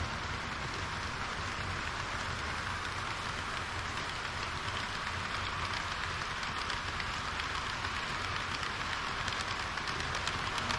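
Model train running along its track: a steady rushing rattle of wheels on rails with a low hum underneath, and a few light clicks near the end.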